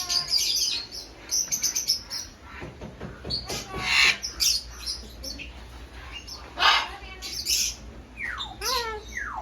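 Caged parrots chirping and calling over one another in a constant chatter of short high notes. Louder calls stand out about four and seven seconds in, and a run of falling notes comes near the end.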